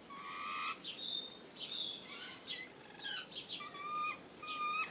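Lorikeets calling: a run of short, high chirps and screeches, one after another.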